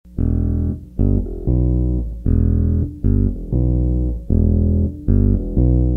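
Background music: a riff of strong, low pitched notes, each starting sharply and held briefly, in a steady rhythm.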